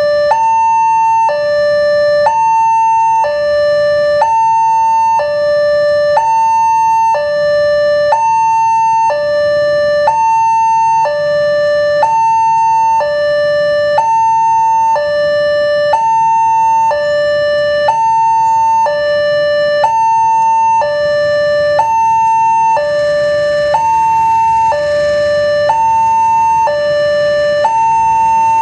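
Railway level-crossing warning alarm sounding continuously: an electronic two-tone signal alternating evenly between a high and a low note, about a second each, warning that a train is approaching. In the last few seconds a faint rushing noise from the approaching train rises under it.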